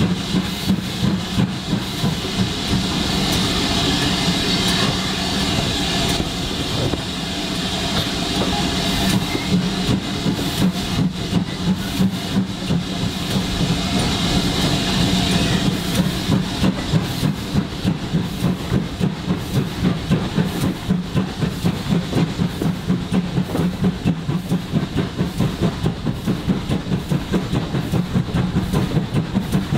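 Steam train running: the GWR 42xx-class 2-8-0 tank engine 4270 working its train, with a steady rhythmic beat about three times a second under a continuous rumble and steam hiss.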